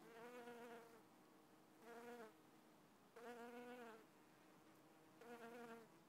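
Flying insects buzzing close by around flowering ivy: four short passes, each under a second, rising and falling slightly in pitch as they go by, over a faint steady hum.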